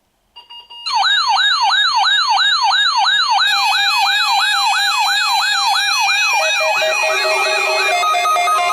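Weather radio receivers sounding their alert alarm as the Required Weekly Test is activated. There are a couple of short beeps, then a loud electronic siren wail sweeping up and down about three times a second. Near the end the wail gives way to stepped, repeating beep tones.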